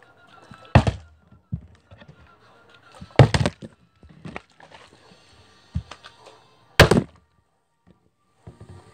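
Plastic Sprite bottle flipped and thudding down on a carpeted floor: three loud thuds, about a second in, around three seconds in and near seven seconds, with smaller knocks between.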